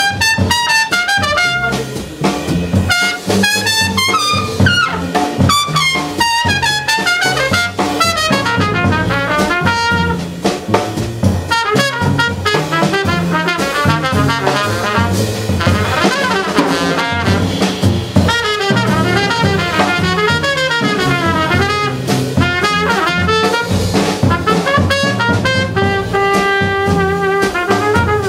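Small jazz combo playing live: a trumpet solos in quick runs of notes over double bass and drum kit, holding a few longer notes near the end.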